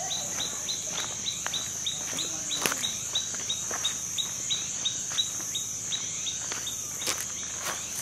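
Steady high-pitched insect drone in tropical forest, with a quick regular run of short chirps, about three a second, that thins out near the end, and a few sharp knocks.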